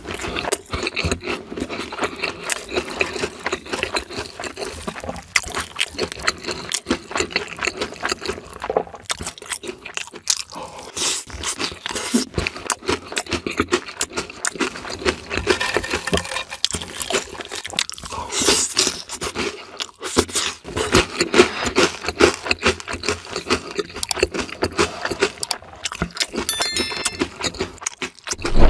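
Close-miked mukbang eating sounds: fried or crunchy food being bitten and chewed, a steady run of crunches and mouth clicks.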